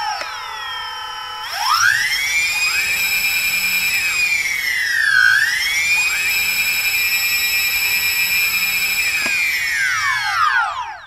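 A quadcopter drone's propeller motors whine in several close tones that rise and fall together. The pitch dips briefly about halfway through, then all the tones fall together and die away near the end as the drone lands and its motors spin down.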